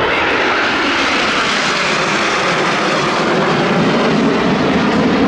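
Aermacchi MB-339 jet trainers with Rolls-Royce Viper turbojets passing by: a loud, steady jet roar that deepens in pitch as they go past.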